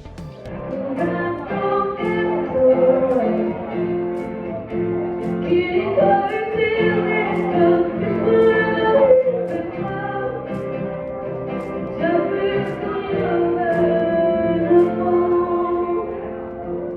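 Music with a singing voice over instrumental accompaniment.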